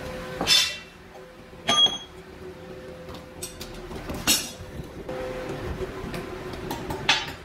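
Hammer blows clanking on the steel axle beam of a tractor trolley: a few separate strikes, one of them ringing, then a quick cluster near the end, over a steady low hum.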